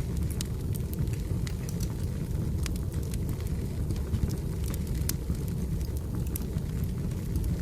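Wood fire burning, with frequent sharp crackles and pops of the firewood over a steady low rumble of the flames.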